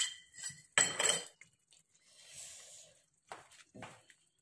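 Kitchen utensils knocking and scraping against a stainless-steel kadai: several short clinks, a soft hiss about two seconds in, then a few lighter knocks near the end as food is scraped from a bowl into the pan with a spatula.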